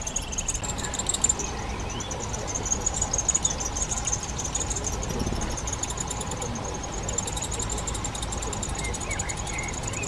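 Eurasian wryneck nestlings begging from inside a tree cavity: a continuous, rapid high-pitched ticking chorus. Underneath runs a low steady rumble.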